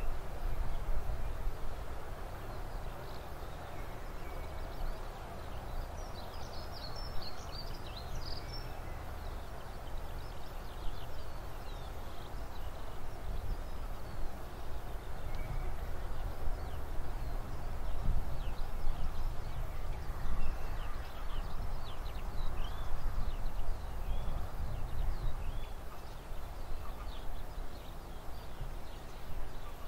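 Low, uneven rumble of a pair of Class 37 diesel locomotives heard from afar as they climb away up an incline. Small birds chirp over it many times from about six seconds in.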